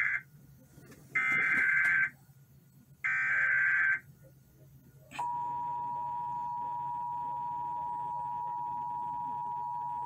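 Emergency Alert System tones played through a TV speaker. The buzzing digital SAME header bursts, each about a second long, come twice after the tail of the first, with short gaps between. About five seconds in, the steady two-tone EAS attention signal starts and holds, announcing an Amber Alert.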